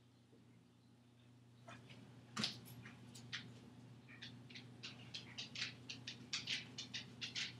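A dog just below the kitchen counter: a sharp knock about two and a half seconds in, then a run of quick clicks, about four a second, growing louder toward the end, over a low steady hum.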